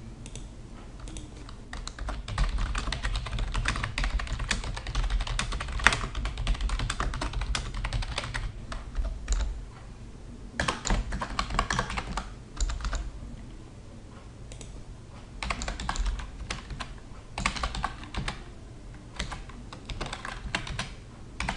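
Typing on a computer keyboard, in several bursts of quick keystrokes with short pauses between them, as text is entered into form fields.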